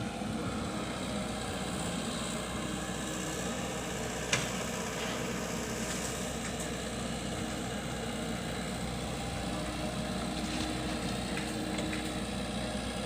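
Komatsu PC78 mini excavator's diesel engine running steadily at a low, even speed, with one brief click about four seconds in.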